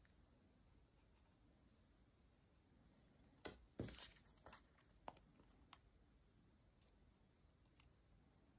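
Faint rustling and light taps of paper pieces and a small plastic glue bottle being handled on a paper-covered table. The loudest is a short cluster of taps about three and a half to four seconds in, with a few lighter ticks just after; otherwise near silence.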